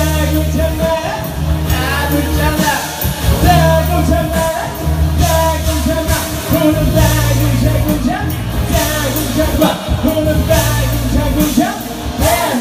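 Live band music with a singer: a pop song with a heavy bass line and drums, sung into a microphone.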